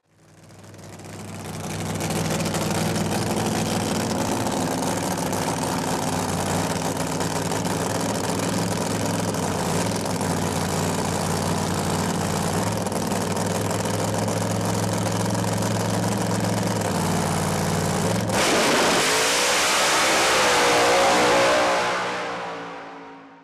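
Pro Modified doorslammer drag car's V8 engine running at a steady, even note. About 18 seconds in, it suddenly goes to full throttle on the launch, the note rising as the car pulls away, then dies away near the end.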